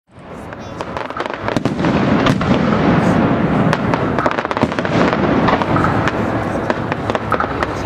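Fireworks display crackling: a dense, continuous spatter of many small sharp pops over a low rumble, fading in over the first second or so.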